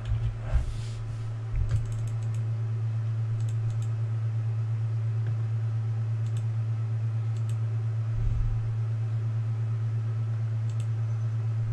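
Computer keyboard keystrokes and scattered mouse clicks over a steady low hum.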